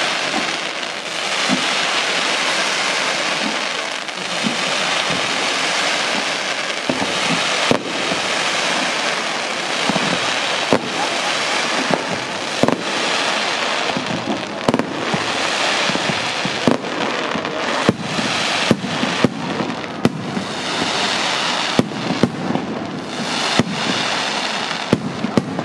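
Fireworks display: a dense, continuous crackle of bursting effects, with sharp bangs of shells scattered through it that come thicker in the second half.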